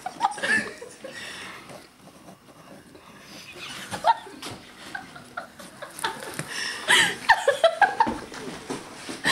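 Young people laughing and chuckling in short bursts, about half a second in, again about four seconds in, and most strongly between about six and a half and eight seconds.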